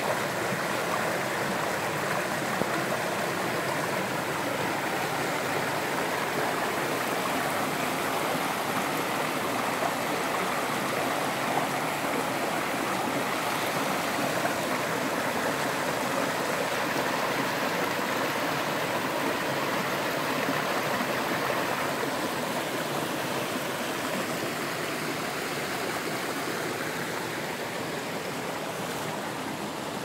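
Mountain stream rushing over and between mossy boulders in small cascades: a steady rush of water that eases slightly near the end.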